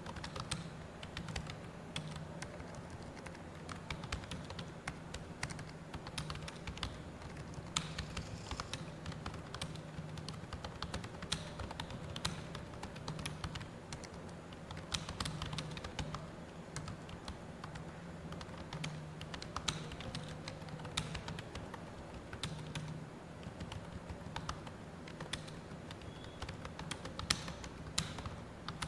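Computer keyboard being typed on continuously at a steady pace: fast, irregular key clicks, with a steady low hum underneath.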